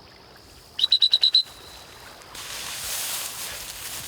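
A quick run of about seven short, high, even-pitched beeps lasting just over half a second, followed by a hissing, rustling noise.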